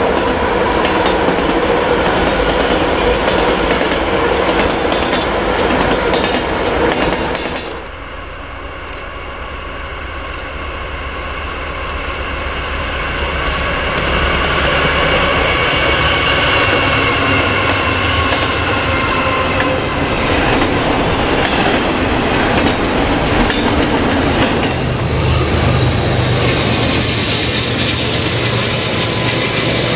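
Norfolk Southern diesel locomotives passing: first a long string of locomotives rolling by with steady clacking of wheels over the rails, which cuts off suddenly about eight seconds in. Then a double-stack container train's lead diesel locomotives approach with a steady high whine and pass close, their engines growing loud near the end.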